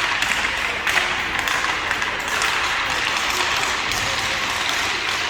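Ice-rink ambience: a steady wash of crowd and rink noise full of quick taps and clatter, likely sticks and skates on the ice and boards.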